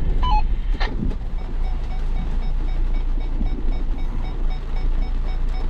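4x4 engine running with a steady low rumble. A short two-note electronic tone and a knock come early, then the vehicle's electronic warning chime beeps repeatedly, several beeps a second, from about a second and a half in.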